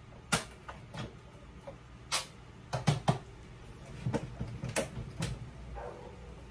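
Sharp plastic clacks and knocks from a blender pitcher being lifted off its base and handled, about eight of them spread over several seconds.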